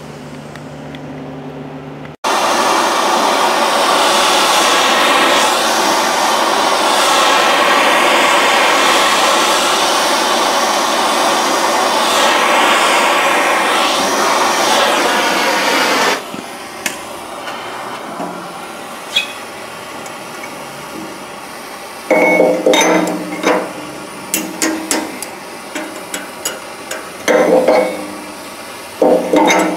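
Handheld propane torch burning steadily, heating a tight-fitting stainless steel sleeve so it expands enough to go onto a washer shaft; the flame cuts off about 16 seconds in. Near the end come a series of metal clinks and knocks.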